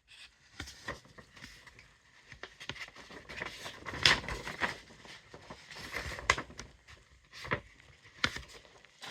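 Packaging being handled while a laptop is unboxed: irregular rustling and crinkling with several sharp knocks and clicks, the loudest about four and six seconds in.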